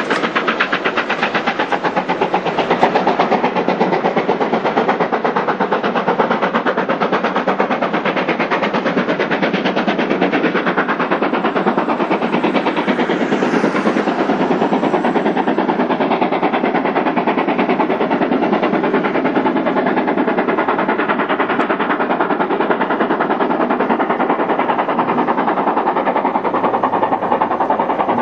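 GWR Hall class 4-6-0 steam locomotive working hard with a train, its exhaust a fast, even beat.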